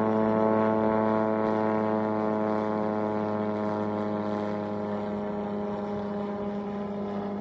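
A steady motor hum at one unchanging pitch, slowly growing a little fainter.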